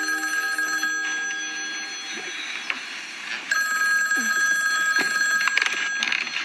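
Cordless phone's electronic ringer ringing twice, each ring about two seconds long with a pause between. A few knocks near the end come as the handset is reached for.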